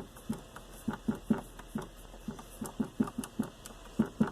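Slime being pressed and dabbed, giving an irregular run of short, soft sticky pops and squelches.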